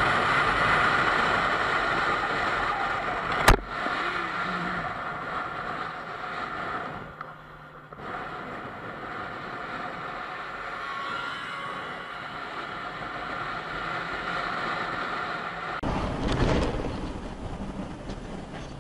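Motorcycle riding at highway speed: steady wind rush and engine noise, with a single sharp click a few seconds in. Near the end the sound changes to a car's road and engine noise.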